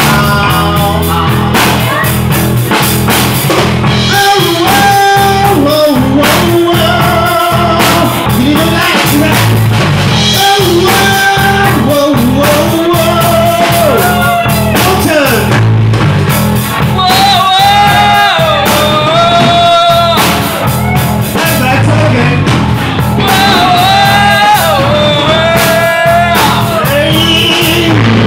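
Live rock band playing loud: electric guitar, bass guitar and drum kit, with a man singing into a microphone over them.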